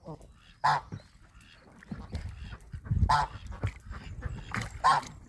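Domestic goose honking: three loud, short, harsh honks about a second in, around three seconds in and near the end, with fainter calls between.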